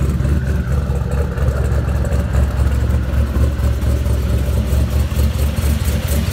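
Twin-turbo LSX V8 engine in a 1971 Chevelle idling steadily, a deep, loud exhaust note with an even pulse.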